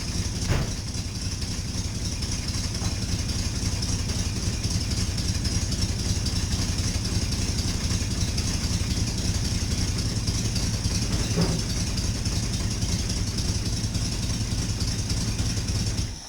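Ford 460 big-block V8 running steadily with a rapid mechanical knocking or clicking through a leaky exhaust. The knock is not a failing rod bearing but the driveline or torque converter partly engaged, with the rear wheel off the ground. The engine sound cuts off near the end.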